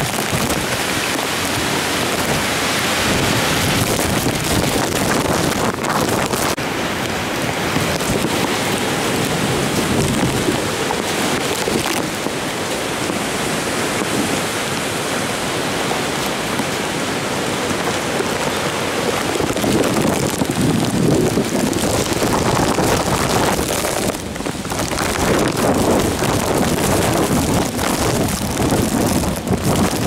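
Typhoon wind and driving rain: a loud, steady rush that swells in heavier gusts in the second half, with a brief lull about three-quarters of the way through.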